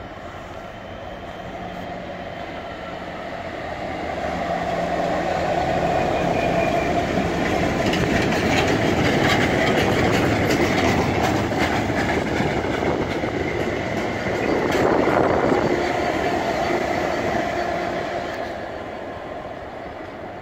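Two Class 66 diesel locomotives, each with a two-stroke V12 engine, work at either end of a railhead treatment train of tank wagons as it passes. The engine drone builds as the lead loco approaches. Then the wagon wheels clatter over the rail joints, loudest about fifteen seconds in, and the sound fades near the end as the rear loco draws away.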